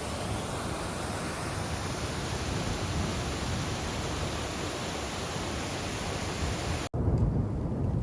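Steady rushing of water from a mountain creek. Near the end it cuts off suddenly and gives way to a deeper rumbling noise.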